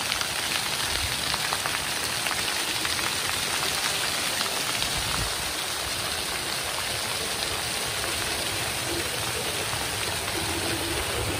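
Water jets of a dry-deck floor fountain shooting up and falling back onto stone paving and drainage grates: a steady splashing of falling water.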